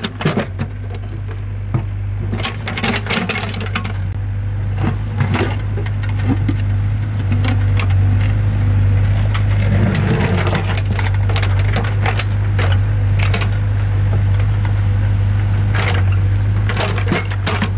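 Excavator engine running with a steady low drone, with scattered knocks and clatters throughout.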